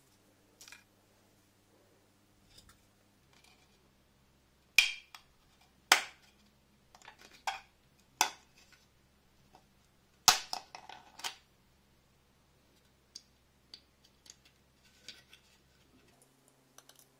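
Thin PLA brim tabs on a 3D-printed part snapping off one at a time: several sharp cracks a second or two apart, with fainter ticks and clicks of the plastic being handled between them.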